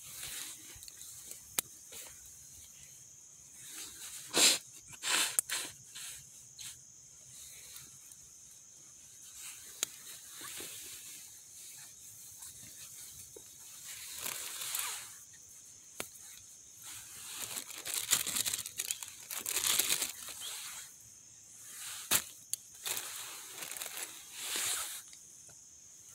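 Small wood cooking fire crackling, with scattered sharp pops, a few of them louder, and a soft rushing hiss that swells and fades several times.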